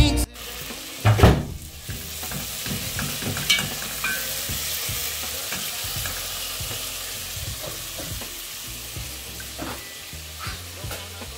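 Tomato sauce sizzling in a pot on a gas stove while a spoon stirs it, with short scraping strokes against the pot and one loud knock about a second in.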